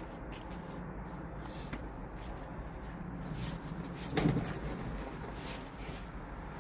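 Quiet workshop handling noises with a few light clicks and one louder clunk about four seconds in, as tools and car parts are moved around.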